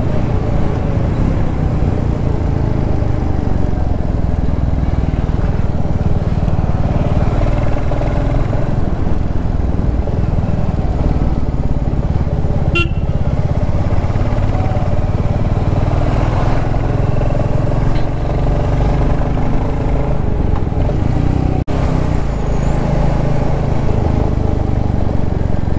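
Motorcycle engine running steadily while riding at road speed along a highway.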